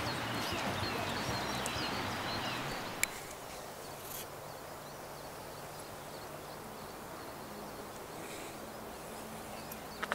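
Outdoor ambience with small birds chirping over a soft background rush. A sharp click comes about three seconds in, after which the background turns quieter.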